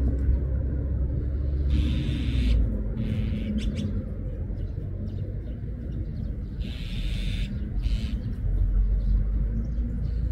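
Azure-winged magpies giving noisy calls: two harsh bursts, about two seconds in and again about seven seconds in, with a few short clicks between. Under them runs a steady low rumble that is louder than the birds.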